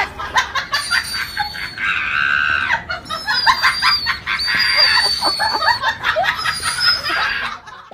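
Siberian husky yowling and screaming in high-pitched, drawn-out cries while being held and handled, with a woman's shrieks mixed in.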